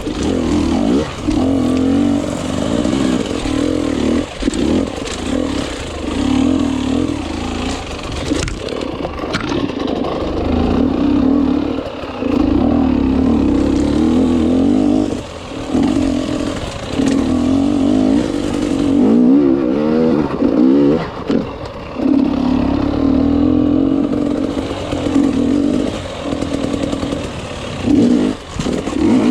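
Enduro motorcycle engine under way, its pitch wavering up and down and cutting back briefly every few seconds as the throttle is opened and closed, with a steady hiss over it.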